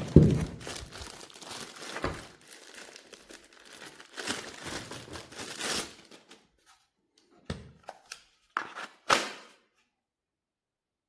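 Crinkling and rustling of packaging being handled, broken by a sharp knock at the start and several shorter knocks later on. No drill motor is running.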